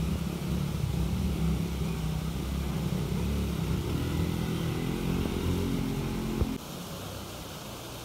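A motor vehicle engine running steadily with a low hum, dropping to a quieter level about six and a half seconds in.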